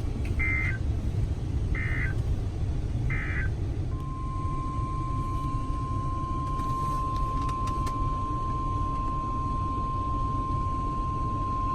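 NOAA Weather Radio alert signals: three short buzzy SAME digital data bursts about a second and a half apart, then the 1050 Hz warning alarm tone, a single steady high beep starting about four seconds in and held through the rest. Under it is a constant low rumble and hiss of radio static.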